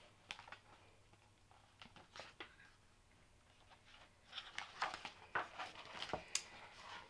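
Faint paper rustling and soft clicks of a hardcover picture book's pages being handled and turned, with a run of short rustles in the second half.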